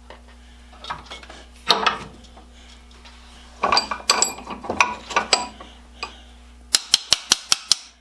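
Small metal tools and parts being handled on a workbench: scattered clinks and rattles, then a quick, even run of about seven sharp clicks near the end.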